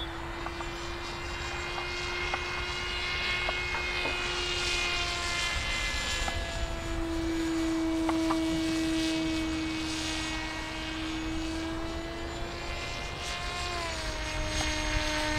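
Motor of a radio-controlled model jet formation plane flying overhead: a steady whine that wavers slightly in pitch and drops in pitch near the end.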